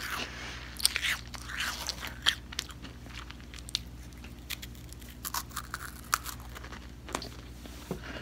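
A person biting into and chewing a small crunchy snack close to the microphone: sharp, irregular crunches, several in a few seconds, with quieter chewing between them.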